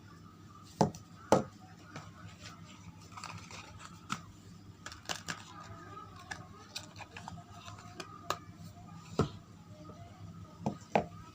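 Hands unpacking soap bars: wrapping crinkling, with scattered taps and clicks and two sharp knocks about a second in, another near the end.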